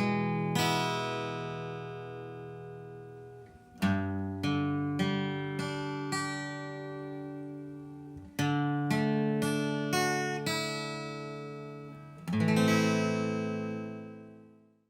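Acoustic guitar with single strings picked slowly one after another, each note left to ring out and fade. New groups of notes start about every four seconds, and the last one dies away just before the end. This is the single-string picking stage of capturing an LR Baggs Voiceprint profile of the guitar.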